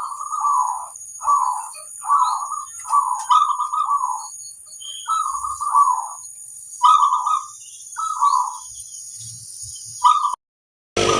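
Zebra dove (perkutut) giving its rough 'kerot koar' coo in a series of short phrases, over a steady high-pitched whine. Both stop abruptly about ten seconds in.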